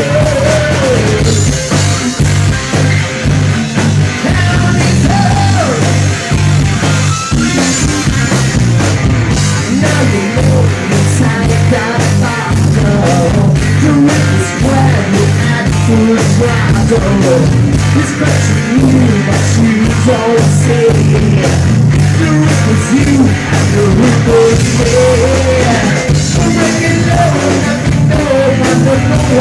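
Live heavy metal band playing loud and steady: distorted electric guitar, electric bass and a drum kit.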